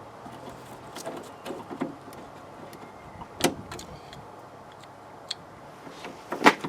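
Scattered light metallic clicks and knocks of a door lock rod and latch linkage being worked by hand inside a van's rear door, trying to hook the rod on; the loudest knocks come about halfway through and just before the end.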